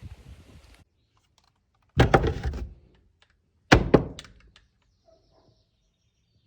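Two loud thunks about a second and a half apart, each with a short rattling tail.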